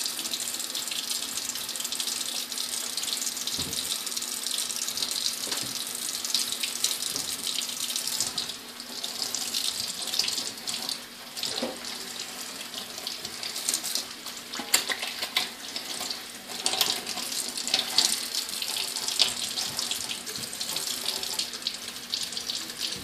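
Tap water running into a sink while soapy hands are washed under the stream, the splash changing as the hands move.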